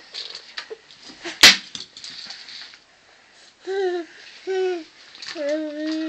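A one-year-old baby vocalizing: two short "ah" sounds about four seconds in, then a long, steady held note starting near the end. A single sharp knock comes about a second and a half in.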